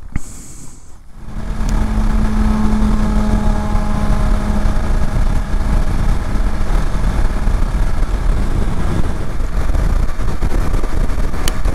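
BMW F750GS parallel-twin motorcycle engine running at steady motorway cruising speed, with heavy wind and road noise. It cuts in suddenly about a second in, after a brief quieter stretch.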